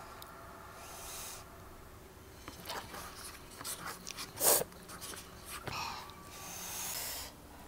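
Close-up eating sounds from a person eating: small mouth clicks and soft breaths, with one short, sharp sound about halfway through that is the loudest.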